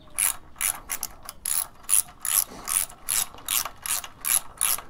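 Socket ratchet wrench clicking in quick, even strokes, about two to three bursts of pawl clicks a second, as a bolt is run down.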